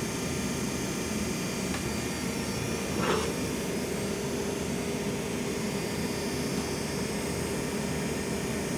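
Steady machine hum with a constant tone, like a running blower or compressor, with a brief louder swish about three seconds in.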